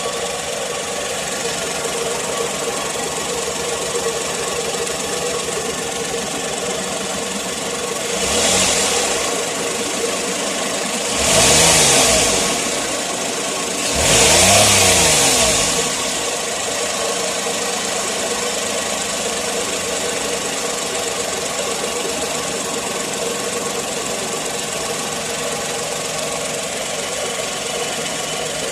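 Suzuki Wagon R's K6A three-cylinder engine idling steadily, revved up and back down three times about a third to halfway through. The air-conditioning compressor bearing whine that the owner was after does not come through clearly.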